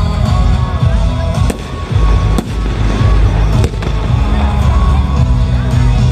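Aerial firework shells bursting with several sharp bangs over loud music played with the show.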